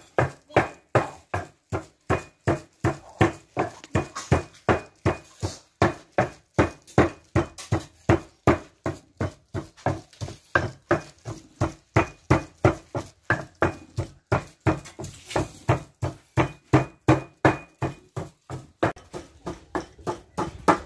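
Pestle pounding in a clay mortar, in steady strokes about two and a half times a second.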